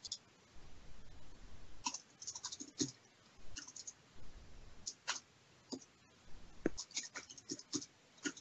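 Computer keyboard typing in short, irregular runs of sharp key clicks, with the odd mouse click.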